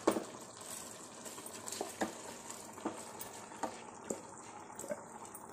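Chicken biryani masala simmering in a pot, with a faint steady sizzle and a bubble popping about once a second, while rice is tipped onto it.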